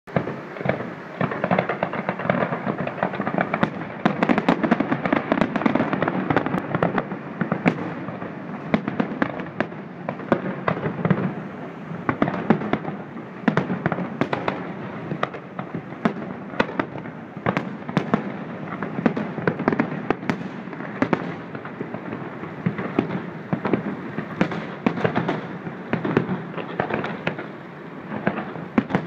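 Fireworks display: a continuous barrage of bangs and crackling, several sharp reports a second with no let-up.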